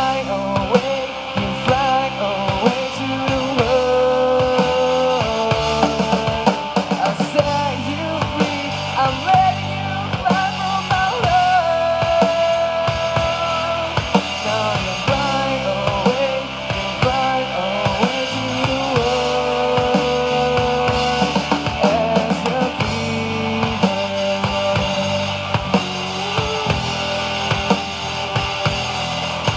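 Live rock band playing an instrumental passage: drum kit and electric guitars under a lead line of held, bending notes.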